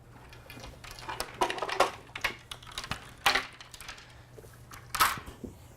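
Frame parts of a folding boat being unclipped and pulled apart as the gunwales come off: a scatter of sharp clicks and clinks, with a few louder knocks.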